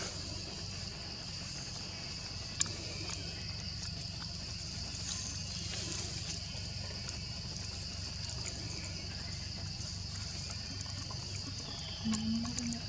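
Steady high-pitched drone of insects, with a low rumble underneath. A single sharp click comes about two and a half seconds in, and a brief low-pitched sound near the end.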